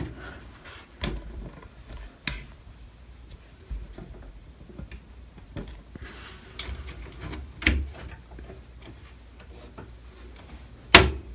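Scattered clicks and knocks of a graphics card being worked into its slot in a metal PC case, with a sharp knock near the end as it goes in.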